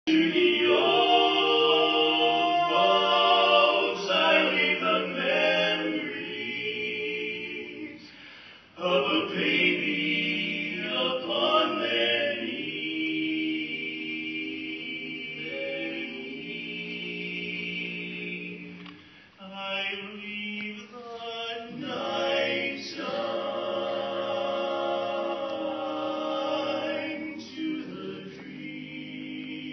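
Male vocal trio singing a cappella in harmony, several voices holding chords together, with brief breaks between phrases about eight and nineteen seconds in.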